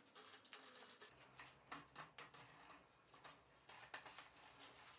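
Near silence with faint, scattered light clicks and ticks.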